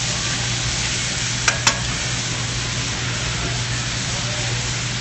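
Sliced onions sizzling in a metal sauté pan as the added alcohol cooks off and the liquid reduces, stirred with tongs. Two sharp clicks close together about a second and a half in, typical of the tongs striking the pan.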